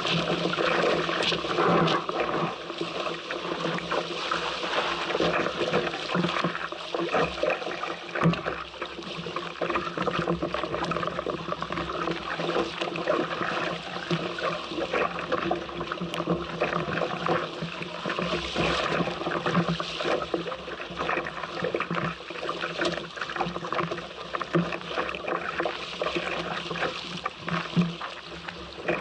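Water rushing and splashing against the hull of a small sailboat moving fast in strong wind, a steady churning hiss full of small crackling splashes.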